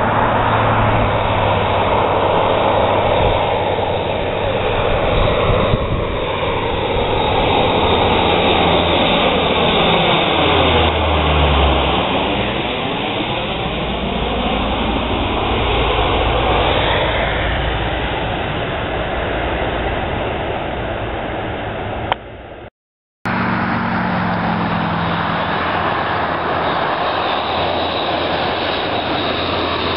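Lockheed C-130 Hercules four-engine turboprop passing low overhead: a loud, steady propeller-and-engine drone whose tone sweeps down and back up as it goes over, about eleven seconds in. After an abrupt cut, the drone of another low approach carries on.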